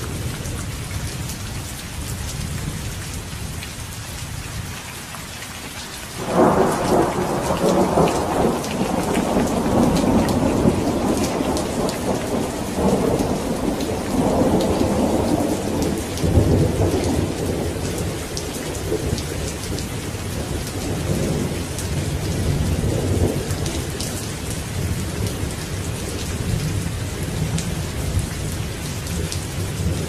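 Steady rain with a roll of thunder that breaks in suddenly about six seconds in, rumbles loudly for some ten seconds, then dies down to a low rumble under the rain.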